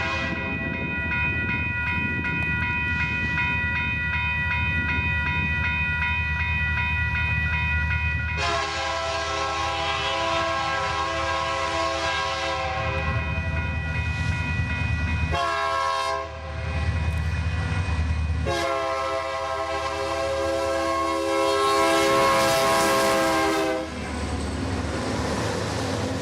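Union Pacific diesel locomotive's multi-chime air horn sounding a long, a long, a short and a final long blast, the grade-crossing signal, over the low rumble of the diesel engine. After the last blast the engine and the rolling train carry on.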